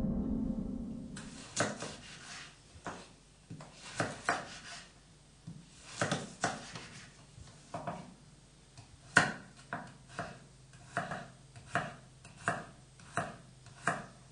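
A low ringing tone dies away in the first second. Then comes a kitchen knife chopping on a cutting board: sharp knocks, uneven at first, settling into a steady stroke about every two-thirds of a second.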